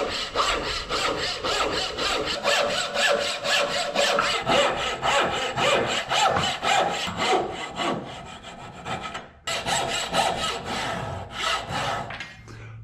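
Bow saw cutting the curved outline of a cherry handle, in fast, even strokes. The sawing stops briefly about nine and a half seconds in, then resumes more quietly toward the end.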